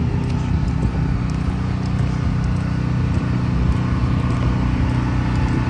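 An engine running steadily at idle, an even low drone with no change in speed.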